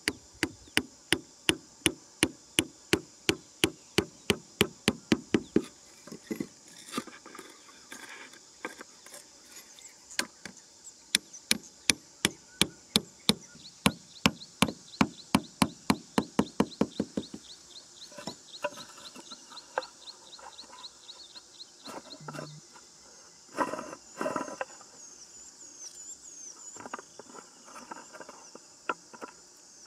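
Bamboo stakes being hammered into sandy ground: quick runs of sharp wooden knocks, about three a second, each ringing briefly, with a few heavier knocks later. Insects buzz steadily throughout.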